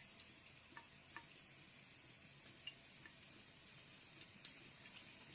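Near silence: faint steady hiss with scattered light clicks, the strongest about four and a half seconds in.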